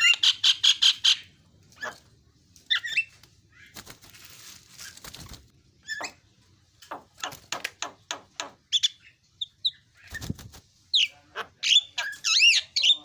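Javan myna calling: a fast run of sharp, rattling pulses opens it, followed by scattered short whistles and chattering notes, and looping rising-and-falling whistles near the end. There is a brief rustling noise about four seconds in and a low thump about ten seconds in.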